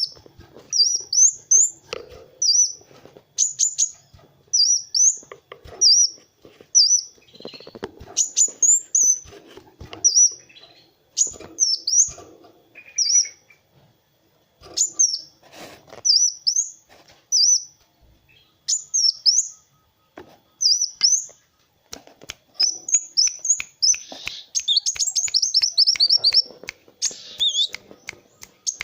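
Kolibri wulung (a sunbird) singing: short, sharp, high chirps repeated in quick phrases with brief pauses between them. Near the end the chirps run together into a fast, unbroken trill.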